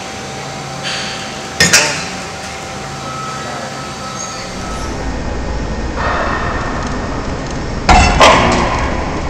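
Propane forklift running as it pushes a loaded pallet into a SlowStop flexible bollard. The engine rumble grows from about halfway. A pair of sharp knocks comes early, and a louder double knock near the end as the pallet strikes the bollard and tips it over on its pivoting base.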